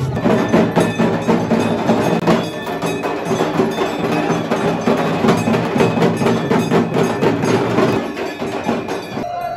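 Fast, dense percussion: rapid drum strokes mixed with ringing, bell-like metal tones, as from a dhak drum played with bells during temple worship. It gives way near the end.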